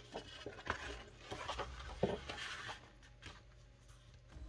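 Rustling and rubbing of a sheet of folded heavy card paper being handled and flattened on a cutting mat, with a few small taps. The rustle dies down about three seconds in.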